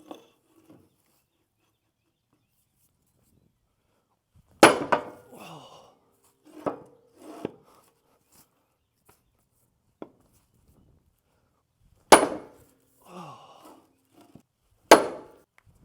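Heavy blows struck on a chunk of wood to drive a rebuilt hydraulic boom cylinder's rod and piston into its barrel: three loud strikes, each with a brief ring, and a few lighter knocks between them.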